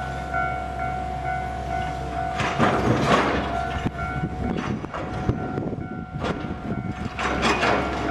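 Level-crossing warning bell ringing in a steady repeating ding while a limited express electric train runs through the crossing. From about two and a half seconds in, its wheels clatter over the rail joints.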